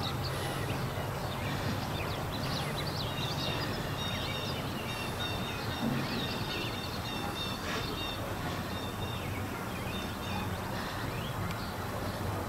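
Songbirds chirping and trilling from the surrounding trees, many short repeated high notes, over a steady low background hum.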